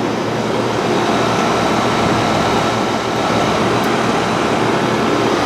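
Outdoor heat pump units running in cooling mode: a steady rush of condenser fan air with a low, steady hum underneath.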